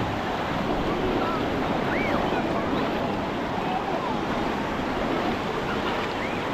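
Steady wash of sea waves breaking on a sandy beach, with a few faint short high-pitched calls scattered through it.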